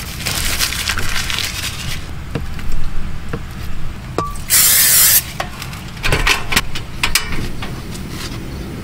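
A short hiss of aerosol cooking-oil spray into a non-stick frying pan, about halfway through. Before it there is rustling, and around it clicks and knocks from handling food and cookware.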